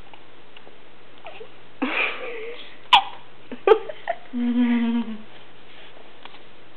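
A newborn baby hiccuping: two sharp hiccups about a second apart, among brief small vocal sounds just before and after.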